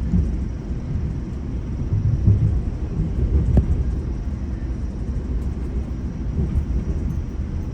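GO Transit commuter train running along the track, heard from inside a coach: a steady low rumble with a sharp click from the wheels about three and a half seconds in.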